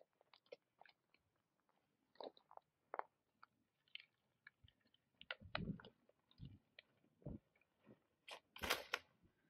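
Faint, irregular crunching of footsteps on a dry trail strewn with twigs, with a louder crackle near the end.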